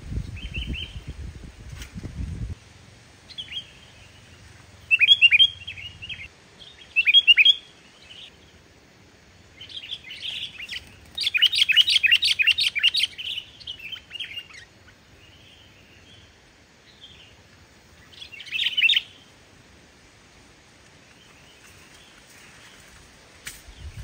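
Sooty-headed bulbul singing in short bursts of bubbly, chattering phrases: brief bursts about five and seven seconds in, a long, loud run from about ten to thirteen seconds, and another short burst near nineteen seconds. A low rumble fills the first couple of seconds.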